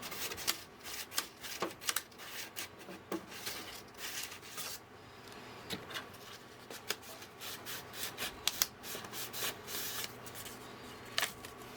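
An electronic connector being scrubbed clean: repeated short, irregular scratchy rubbing strokes.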